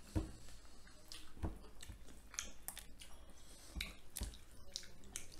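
Several people eating rice and fish curry with their hands: soft chewing and mouth sounds with scattered light clicks from fingers and utensils on plates.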